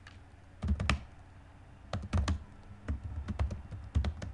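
Typing on a computer keyboard: several short bursts of keystrokes with pauses between them.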